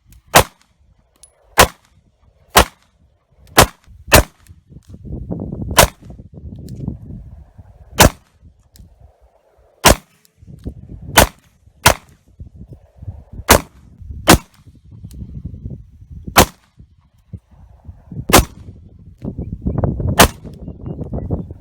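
Glock 43 9mm pistol firing 124-grain rounds in slow, steady fire: about fifteen sharp shots spaced roughly a second apart with a few longer pauses, and a low rumble between shots.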